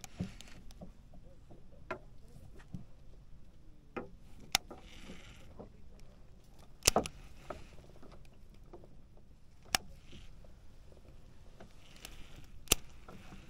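Sharp, irregular clicks and knocks from a red baitcasting reel being handled and its handle worked, about seven in all, the loudest about halfway through, over a faint steady low background.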